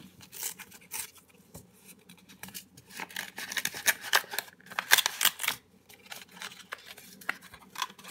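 Small brown kraft-paper seed envelope being peeled open and unfolded by hand: crisp paper crinkling and rustling in quick irregular crackles, busiest about halfway through.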